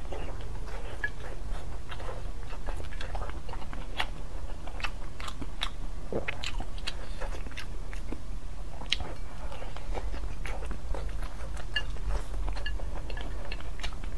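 Close-miked eating: a person bites into and chews small thin-skinned steamed buns soaked in chili oil, with frequent, irregular wet smacks and mouth clicks over a steady low hum.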